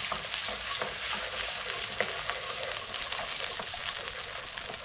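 Whisked yogurt sizzling in hot oil with ginger-garlic paste in a nonstick wok, stirred steadily with a wooden spatula: an even frying sizzle with light scraping strokes of the spatula.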